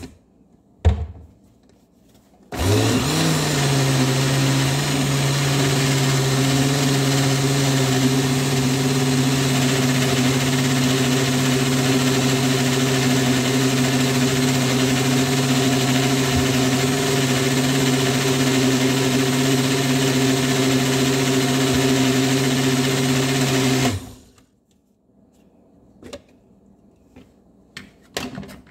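Countertop blender's motor spinning up about two and a half seconds in and running steadily as it blends a protein shake, then shutting off suddenly about twenty seconds later. A sharp knock comes before it starts, and a few light clicks and taps follow after it stops.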